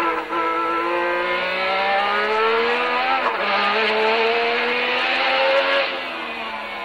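Renault RE40's 1.5-litre turbocharged Renault EF1 V6 heard onboard under hard acceleration: the pitch climbs, drops at a gear change about three seconds in, and climbs again. The engine eases off near the end.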